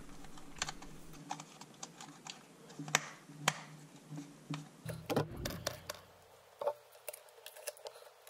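Scattered light clicks and taps of hands handling lamp wire and small plastic light fittings, with two sharper clicks about three seconds in.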